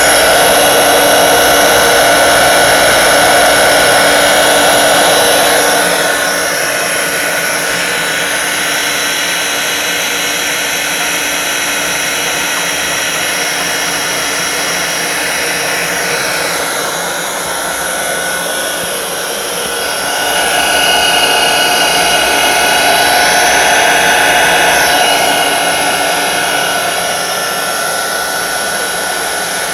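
Sanso Electric PHP-4043BHZ7 three-phase 200 V hot-water circulation pump running steadily: an even motor hum and whine with a wide hiss. It gets a little quieter about six seconds in and louder again about twenty seconds in. The motor carries a slight odd noise, which the owner feels is a little abnormal.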